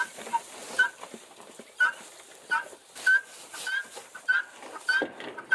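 A dog, likely a young one, whining in short high-pitched whimpers, about ten cries coming roughly every half second.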